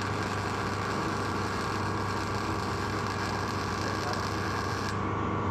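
Steady machine hum with a few constant tones over a background hiss; the upper hiss cuts off abruptly about five seconds in.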